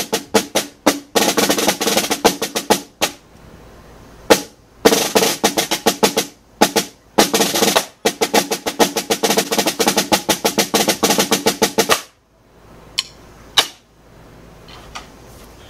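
Snare drum played with wooden drumsticks in fast licks: quick rolls and tight runs of strokes broken by short pauses. The playing stops about twelve seconds in, and only a few quieter taps follow.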